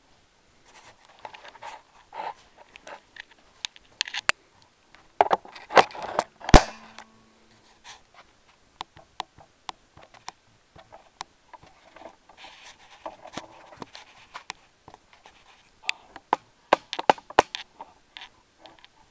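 Irregular clicks, knocks and scrapes of handling at a workbench, loudest in a cluster of knocks about five to six and a half seconds in, with further scattered clicks near the end.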